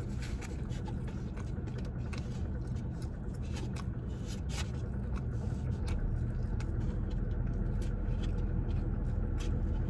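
Steady low hum of a car running, heard inside its cabin, getting slightly louder about six seconds in, with scattered light clicks and scrapes of eating and handling food.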